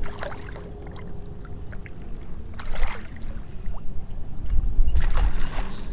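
Water splashing and sloshing a few times as a small striped bass is handled at the surface and released by hand in shallow river water.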